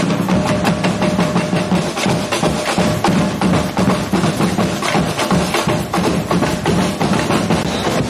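Marching drum band of large bass drums (surdos) and snare drums playing a steady, dense rhythm of many strokes a second.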